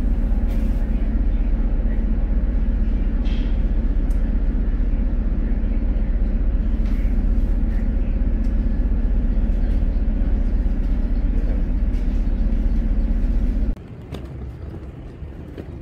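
A boat's engine running steadily, heard from on board as a loud low rumble with a faint steady hum. It cuts off abruptly near the end, leaving a much quieter outdoor background.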